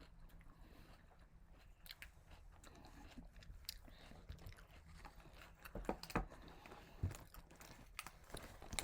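A person chewing food close to the microphone: irregular soft smacks and crunches of mouth-eating, with a few louder bites around six to seven seconds in.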